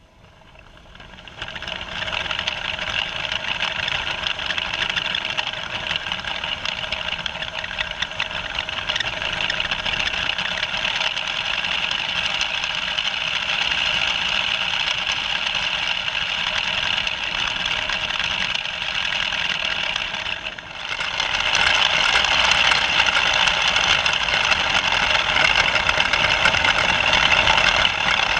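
Electric motor and gearing of a toy building-brick train running, picked up by a camera riding on the train: a steady multi-tone whine that winds up over the first couple of seconds, dips briefly about twenty seconds in, then comes back louder.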